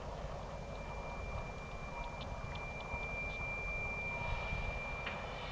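Steady high-pitched squeal of train wheel flanges grinding around a very sharp curve as the train backs slowly, getting louder and harsher near the end, over a low rumble.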